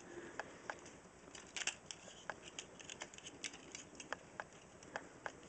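Faint, irregular plastic clicks and ticks as the jointed parts of a Transformers Marvel Crossovers Wolverine figure are worked by hand, with a small cluster of clicks about a second and a half in.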